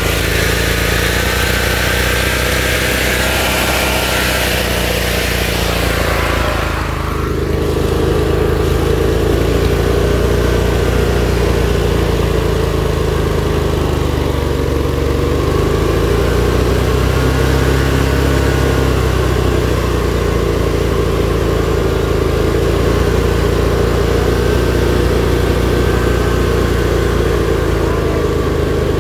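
Modified off-road lawn tractor's small engine running steadily, its speed wavering slightly up and down.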